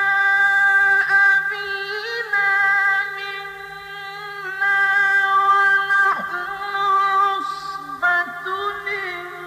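A male Quran reciter's voice chanting in the melodic mujawwad style, holding long, wavering notes. His voice slides down in pitch about six seconds in. A faint steady hum from the old recording lies underneath.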